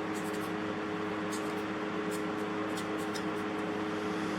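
Steady mechanical hum with a constant two-note drone over a hiss, with a few faint light clicks.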